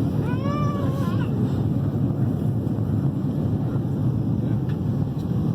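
Steady low rumble of an airliner cabin in flight, with a brief rising-and-falling voice-like tone about half a second in.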